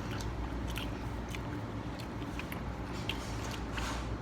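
Someone chewing asada fries close to the microphone: soft, irregular clicks and smacks of eating over a steady low room hum.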